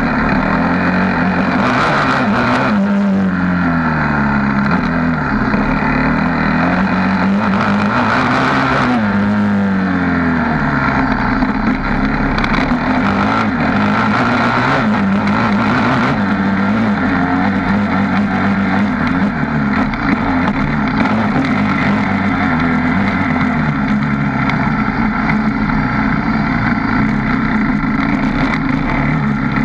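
Suzuki LT-R450 quad's single-cylinder four-stroke engine being ridden hard, its revs rising and falling over and over, with sharp drops in pitch twice in the first ten seconds. Heard up close from the front bumper.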